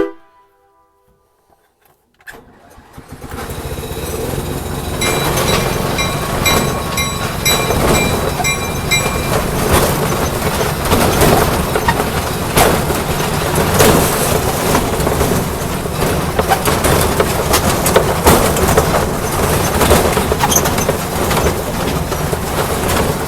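A small train pulling away and running: after a couple of seconds of quiet, a steady engine-like rumble starts and builds, with many irregular clicks. Brief repeated high ringing tones come through between about five and nine seconds in.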